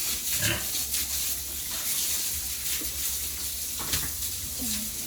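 Pigs making a few faint short grunts over a steady hiss.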